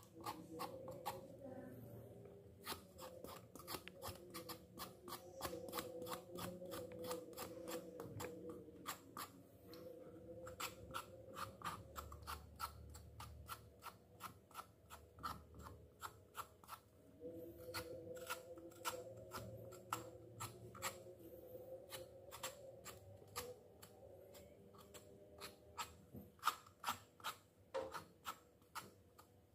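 Knife blade scraping the tough surface of a piece of cow hide, in quick repeated strokes of about three a second, cleaning it before cooking.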